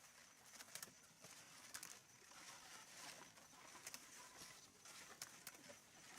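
Very faint, scattered sharp clicks and taps, a few per second at irregular spacing, over near-silent background with a faint steady high-pitched tone.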